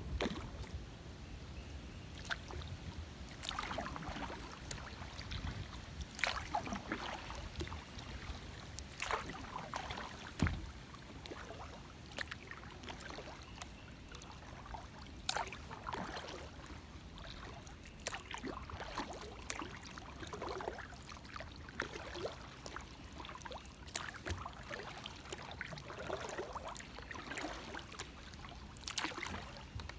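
Kayak paddle strokes in calm river water, soft swishes and splashes about every one to two seconds with drips and gurgles between. One sharper knock about a third of the way through.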